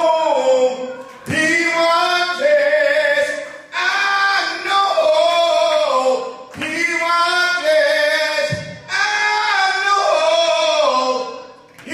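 Voices singing a slow song in long held phrases, each a few seconds long, with short breaks between them.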